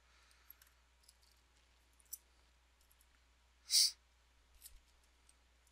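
A few faint computer mouse clicks in a quiet room, with one short louder hiss about four seconds in.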